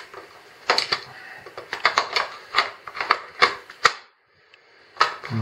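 Cordless gas nail gun being handled as its nail magazine is fitted back in: a run of a dozen or so sharp, irregular plastic and metal clicks and knocks, stopping for about a second near the end before one more click.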